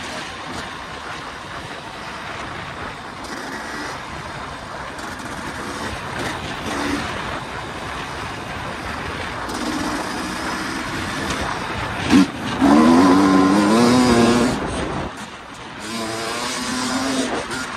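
2023 KTM 300 EXC two-stroke dirt bike engine being ridden, first at a low steady pull under a rushing wind noise. About twelve seconds in there is a short knock, then the engine revs up hard with rising pitch, the loudest part. It drops off briefly and picks up again near the end.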